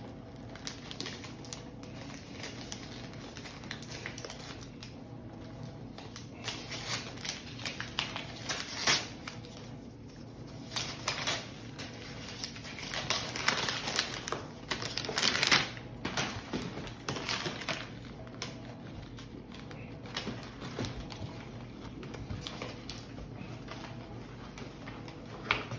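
Cardboard gift boxes and paper packaging being handled and opened: irregular papery rustling and crinkling with scattered clicks and taps, loudest in bursts around the middle.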